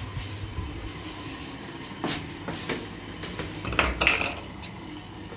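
Plastic fabric-softener bottles clunking and rattling against one another as one is taken from a shelf: a handful of sharp knocks, the loudest about four seconds in.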